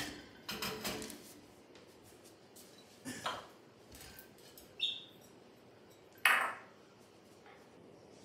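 An African grey parrot moving about on top of its metal cage: scattered clicks and rattles, a short high chirp about five seconds in, and a sharp, harsh burst about six seconds in, the loudest sound.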